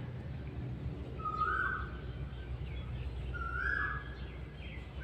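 Asian koel (koyal) calling: a short two-note call repeated about every two seconds, with fainter chirps of smaller birds.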